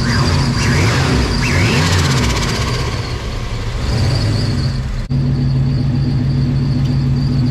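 Ford Bronco engine idling, with a brief rise and fall in revs about two seconds in; the exhaust no longer leaks now that a loose flange bolt is tightened. It idles rich, which the owner says is where it likes to idle.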